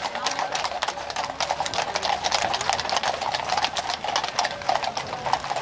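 Hooves of many shod horses walking in column on a paved street, clip-clopping in a dense, irregular clatter.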